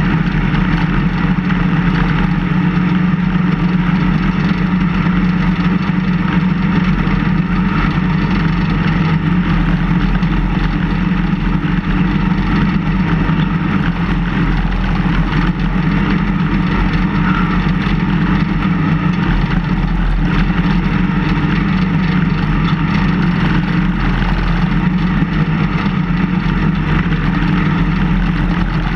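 The engine of a snow-plow vehicle runs steadily and loudly while its plow blade pushes snow.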